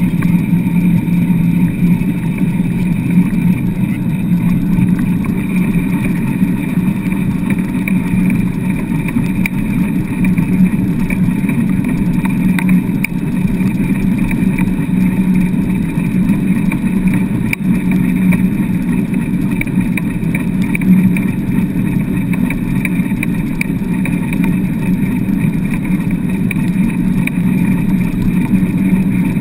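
Wheeled dog rig rolling fast over hard wet beach sand behind a four-dog team, heard from a camera mounted on the rig: a continuous, loud rumble that holds steady throughout.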